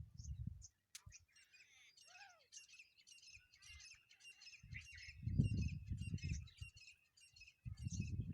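Small birds chirping in a rapid repeated chatter, about three to four chirps a second. Low rumbling bursts come near the start, in the middle and near the end.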